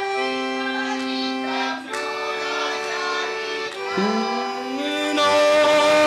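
Accordion playing long held chords that change about every two seconds. About four seconds in, a note slides upward into a held tone, and near the end the music grows louder, with wavering sung or fiddled notes over the accordion.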